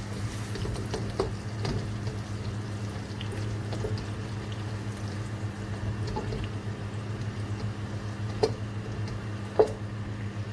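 Butter melting and sizzling gently in a pan with leftover chicken cooking juices, over a steady low hum, with a couple of light knocks near the end.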